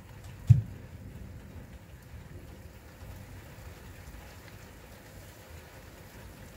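Steady rain during a night-time thunderstorm, with one sharp thump about half a second in.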